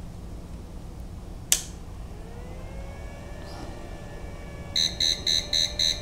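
A click as the power inverter is switched on, then a faint tone that rises and holds. Near the end the inverter's fault alarm starts beeping, high-pitched and rapid, about four beeps a second. The owner puts the fault down to the mini fridge pulling too many watts for the 400-watt inverter.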